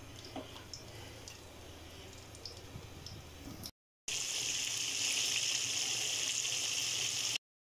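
Flour-coated chicken pieces deep-frying in hot oil in a pan. At first there are faint crackles over a low hum; after a brief break about four seconds in comes a loud, steady sizzling hiss of the oil bubbling around the chicken.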